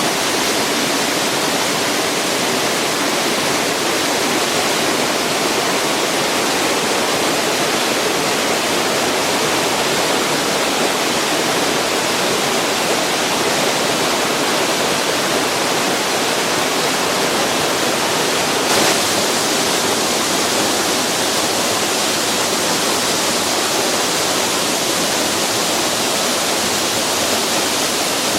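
A waterfall rushing, a steady, loud roar of falling water.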